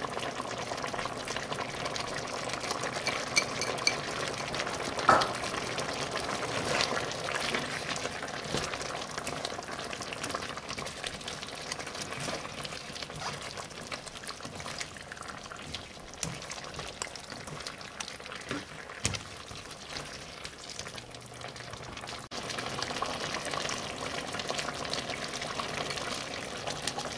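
Beef and green bean red curry sizzling and bubbling in a hot wok while a spatula stirs it. Irregular scrapes and clacks of the spatula against the pan, the loudest about five seconds in.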